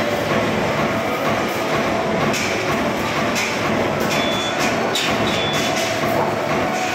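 Steady rumble of workshop machinery around a hydraulic press brake. A few short metallic rattles and a brief ring come about two to five seconds in, as a long strip of sheet metal is lifted and flexed.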